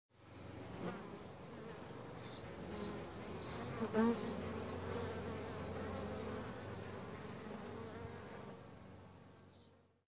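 Honey bees buzzing in a steady hum that fades in and slowly fades away, with a louder buzz bending in pitch about four seconds in as a bee passes close.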